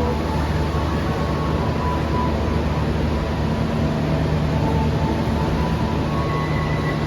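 Wijayakusuma passenger train running: a steady rumble with a low hum and faint thin whines that come and go.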